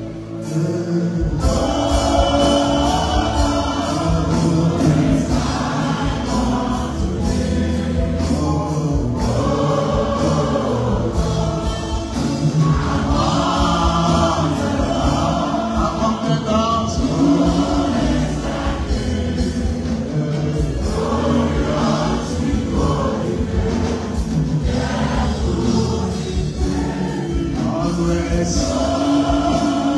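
Gospel worship music: a choir singing with a male lead vocal over a band, whose steady low beat comes in about a second in.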